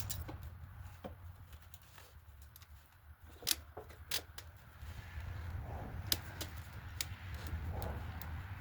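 Scattered sharp clicks and taps of hand work on a two-stroke dirt bike engine as its top end is worked apart, over a low steady hum.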